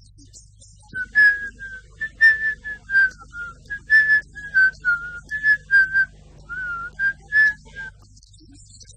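A person whistling a quick tune of short notes, some with small slides in pitch. It starts about a second in and stops about a second before the end.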